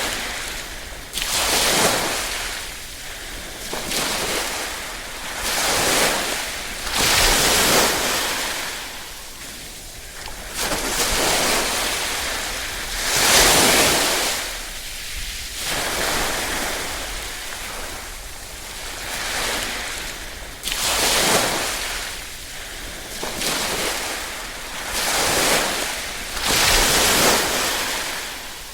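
Small ripple waves washing in, each one swelling and fading in a hiss of water, one every two to three seconds at an uneven pace.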